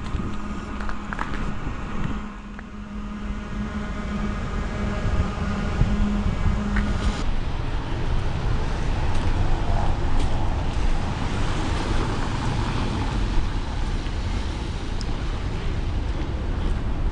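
Street traffic: a motor vehicle's engine hum, then the rising wash of tyre and engine noise as a vehicle passes, swelling in the middle and easing off toward the end.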